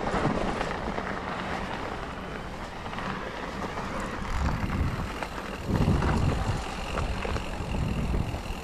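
Steady rushing wind noise with low rumble on a GoPro action camera's microphone, louder for a moment about six seconds in.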